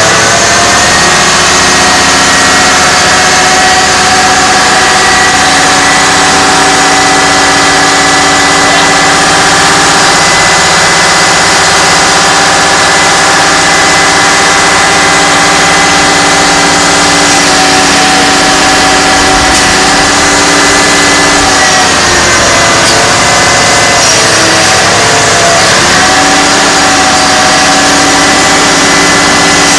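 Fire-brigade mobile crane truck's diesel engine running at steady raised revs to work the crane. About two-thirds of the way through, its pitch dips and wavers for a few seconds, then settles back to the same steady note.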